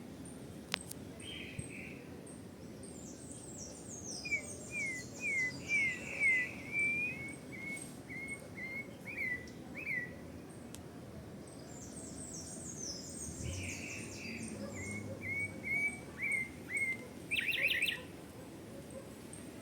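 Pale-breasted thrush (sabiá-barranco) singing two phrases of quick repeated whistled notes, each several seconds long, with a brief rattling burst near the end. A faint high insect ticks steadily in the background.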